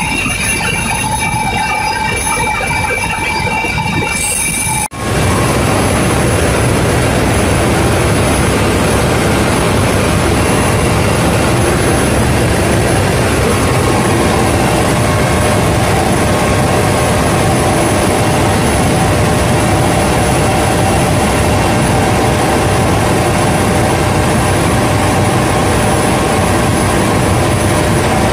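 Helicopter heard from inside the cabin in flight: a loud, steady engine and rotor noise with a few steady whining tones. It breaks off briefly about five seconds in, then carries on.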